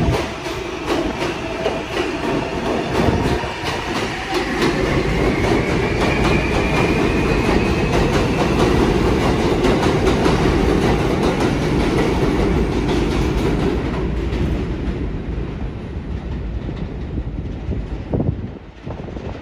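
New York City Subway L train running along the track, its wheels clicking over the rail joints under a steady rumble, with a faint rising whine partway through. The sound grows quieter over the last few seconds.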